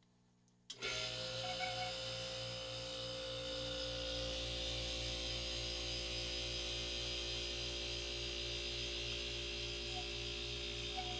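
1994 DeLonghi dehumidifier switching on about a second in: its compressor and fan motor start suddenly and then run with a steady hum, the lowest part throbbing evenly several times a second. The owner takes the fan motor's noise for dry bearings.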